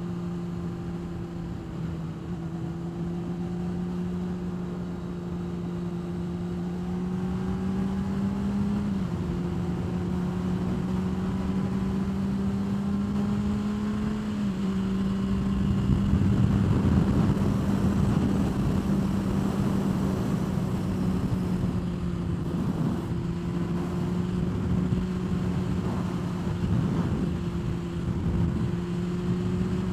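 Honda CBR600RR's inline-four engine running at a steady highway cruise, its pitch creeping slowly upward with two small dips. Wind rush swells over it for a few seconds in the middle.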